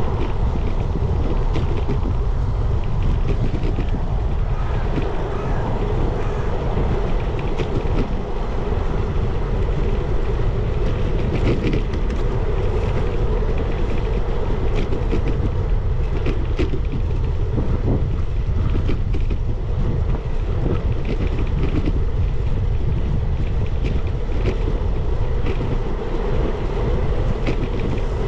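Wind buffeting the microphone of a camera carried on a moving bicycle, over a steady rumble of tyres on the path, with occasional light clicks.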